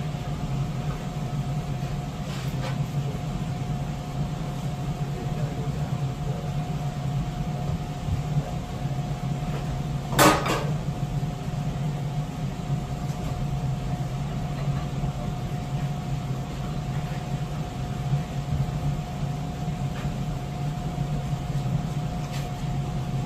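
Steady low mechanical hum with a faint constant tone, over light workshop handling noises; about ten seconds in, one loud metal clank that rings briefly.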